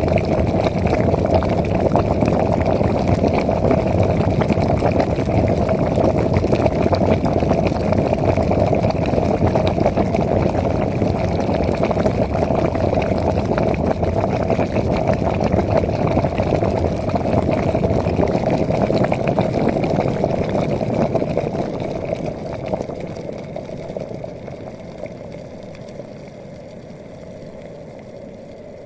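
Kettle of water at a rolling boil, bubbling steadily, fading away over the last few seconds.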